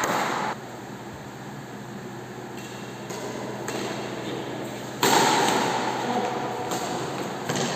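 Badminton rackets striking a shuttlecock in a doubles rally: sharp, echoing smacks, with a sudden louder hit about five seconds in.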